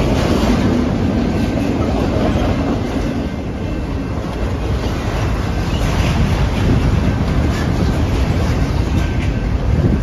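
Freight train of autorack cars rolling past close by: a steady rumble of steel wheels on the rails, with clacking over the rail joints.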